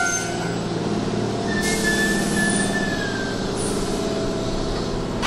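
Keihan 2600-series electric train standing at a platform: compressed air hisses out about a second and a half in, with a thin whistling tone that slowly falls, and again briefly near four seconds, over a steady low hum.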